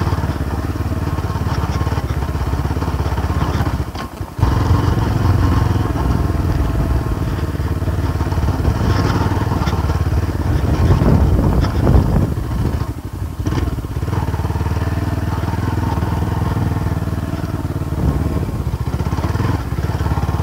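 Motorcycle engine running while ridden over a rough off-road trail, the revs rising and falling. The sound drops out briefly about four seconds in.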